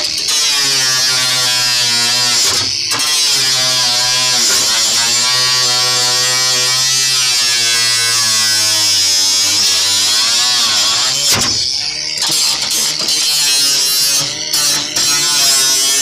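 Makita 18-volt cordless angle grinder cutting galvanised corrugated steel roofing: a loud, high grinding hiss over the motor's whine, which dips and recovers in pitch as the disc bites into the sheet. The cut breaks off briefly about three seconds in and again after about eleven seconds, then goes on stop-start.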